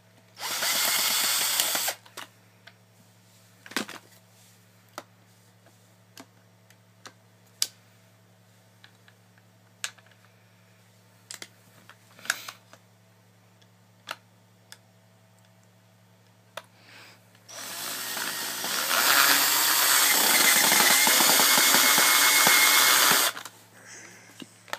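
Power drill driving a screw into a plastic airsoft rifle's receiver to fix the stock on. A short run of about a second and a half comes first, then scattered clicks of plastic parts being handled, then a longer run of about five seconds that speeds up before running steady.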